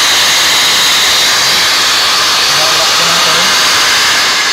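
Bosch GSB 20-2 RE corded impact drill running steadily at full speed with its trigger locked on, a loud whirring that tests the reassembled switch and lock. Near the end it starts to spin down.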